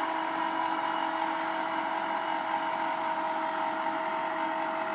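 Motor of a dog elevator running with a steady hum at one fixed pitch.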